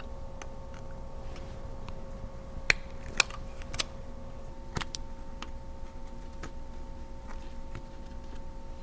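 Scattered sharp metal clicks and taps of a screwdriver and small parts on a Brother KE-430C industrial sewing machine head as its screws are loosened and the collar is taken off, over a faint steady hum.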